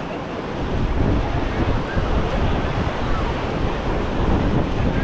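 Ocean surf breaking and washing on the beach, with wind buffeting the microphone.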